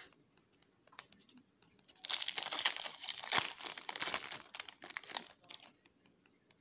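Foil wrapper of a Yu-Gi-Oh OTS Tournament Pack crinkling and tearing as the booster pack is opened, for about three seconds in the middle, with light clicks of cards being handled before and after.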